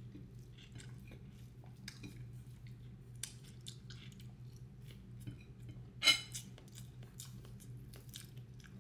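Quiet eating sounds: small clicks of utensils against a plate and chewing, with one louder clink about six seconds in, over a steady low hum.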